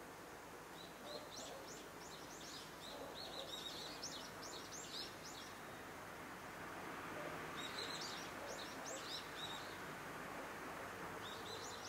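Small birds chirping in three runs of quick, high chirps, over steady background noise.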